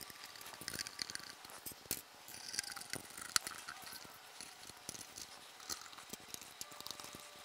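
Faint, scattered metallic clicks and light rattling of oil-pan bolts being started hand-tight into a BMW R90/6's aluminium oil pan, turned with a socket driver in the fingers. One sharper click comes about three and a half seconds in.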